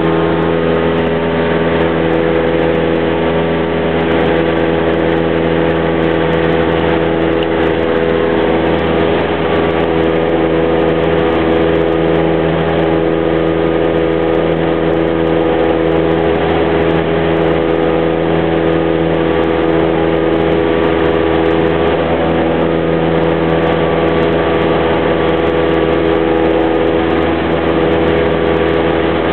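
Cessna 172's piston engine and propeller running at a steady drone with no change in pitch.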